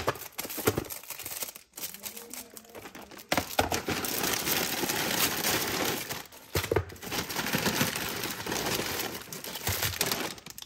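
Plastic packaging crinkling and rustling as it is handled and unwrapped, after a few sharp clicks and knocks in the first few seconds. The crinkling runs continuously from about three seconds in, with a short break around the two-thirds mark.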